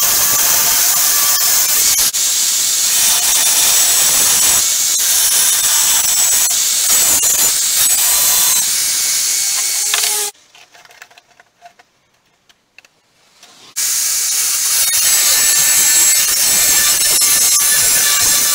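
Power tool cutting or grinding the steel of a motorcycle brake disc, a steady hissing run. It breaks off abruptly for about three seconds just past the middle, then starts again.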